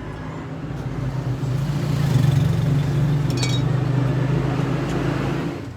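A motor vehicle's engine running, its steady hum swelling louder through the middle and then cutting off abruptly near the end, with a brief metallic clink about three and a half seconds in.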